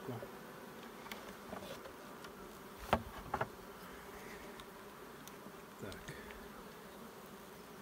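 Honey bees buzzing steadily around an open hive, with two sharp clicks about three seconds in and a softer knock near the end as the wooden frames are worked.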